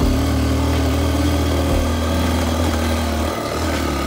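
Motorcycle engine running steadily at low speed, its note dipping briefly about three seconds in.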